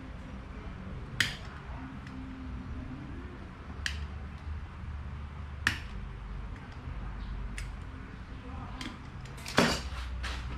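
Sharp metallic clicks and clinks of tools and small parts being handled, one every second or two, with a louder cluster of clicks near the end.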